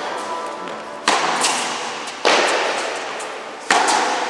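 Tennis ball struck by rackets in a rally: three loud hits roughly a second and a quarter apart, with fainter knocks between them. Each hit rings out in the reverberant, metal-walled indoor tennis hall.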